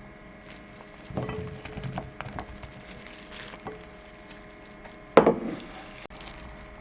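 Food-preparation knocks on a wooden chopping board: a quick, uneven run of taps about a second in, then one loud knock about five seconds in, over a faint steady hum.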